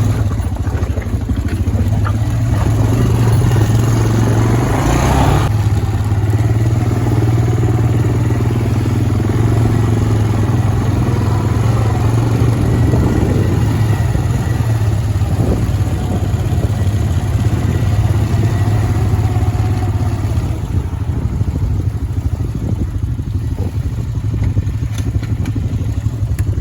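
Honda FourTrax quad's engine running steadily while being ridden along a road, a steady low hum, with a rush of noise that builds over the first few seconds and stops sharply about five seconds in.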